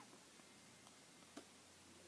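Near silence with one faint, sharp click a little after halfway, from small metal knife parts being handled.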